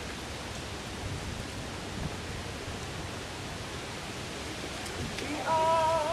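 Steady outdoor background hiss with no distinct events. Near the end a woman's voice begins singing one long, loud, wavering note.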